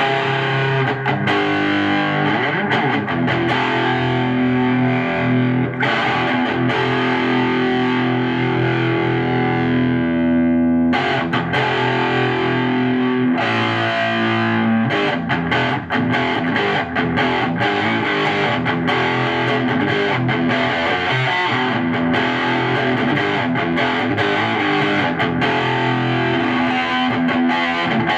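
Electric guitar played through a Tube Screamer-style (TS-9) overdrive pedal into a tube amp, giving an overdriven tone. Held chords ring for the first ten seconds or so and break off suddenly about eleven seconds in, then busier picked playing follows.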